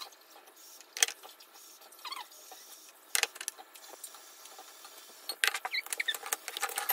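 Faint clicks and taps of plastic lunch boxes and plastic spoons being handled on a table: a sharp click about a second in, another just after three seconds, and a quick run of clicks with a few faint high squeaks in the last second and a half.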